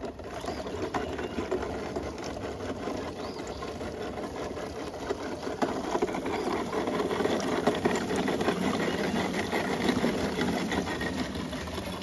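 Rally Roller foam court-drying roller being pushed over a wet hard tennis court: a steady, dense crackling rattle as the sponge roller and its frame roll through standing water.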